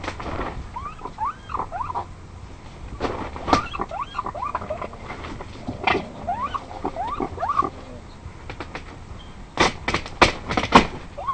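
An unidentified animal making runs of short, squeaky chirps, each rising then falling in pitch, mixed with sharp clicks or knocks. A loud cluster of knocks comes near the end.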